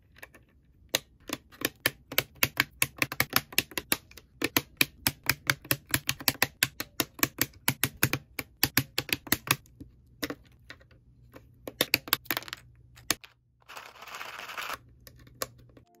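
Akko V3 Cream Yellow linear switches on a bare Royal Kludge RK68 board being pressed over and over, a quick run of sharp plastic clacks several a second that stops about three quarters of the way through. A short rustle follows near the end.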